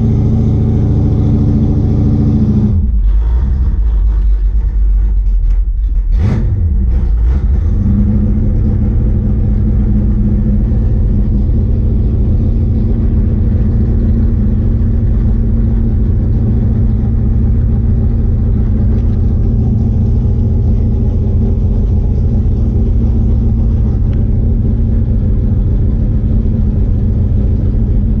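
Carbureted Mopar engine held at a steady raised RPM, a little over 2,000 on the tach, at stage RPM for a vacuum reading. The note changes for a few seconds about three seconds in, then settles back to a steady run.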